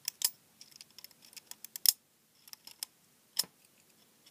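Irregular small clicks and scrapes of a snap-off craft knife blade prying at an LED lamp's metal screw cap and its plastic insulator, a few of them sharper than the rest.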